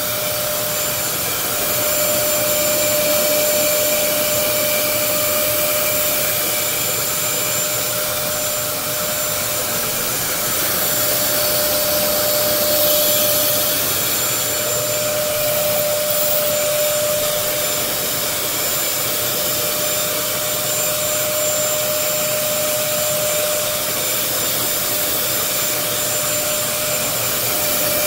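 A vacuum motor running steadily throughout, a continuous rush of air with a steady whine over it. The loudness swells and dips slightly.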